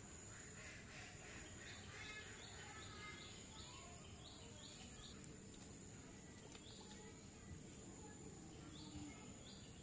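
Quiet outdoor ambience: a bird gives short, high chirps in runs, about three a second, over a steady high-pitched hum.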